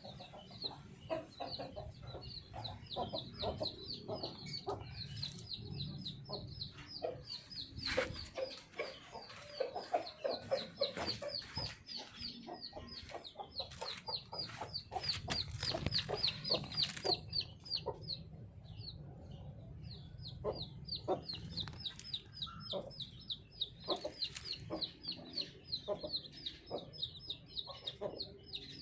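Baby chicks peeping: a rapid run of short, high chirps that fall in pitch, several a second, breaking off briefly about two-thirds of the way through, with scattered sharp clicks.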